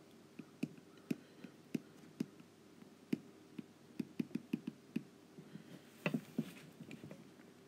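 Stylus tip tapping and clicking on a tablet's glass screen while handwriting, a string of light, irregular taps.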